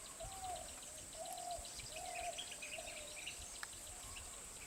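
Wild birds calling: one repeats a short, low note about five times, roughly once a second, among scattered higher chirps. A steady high-pitched insect drone runs underneath.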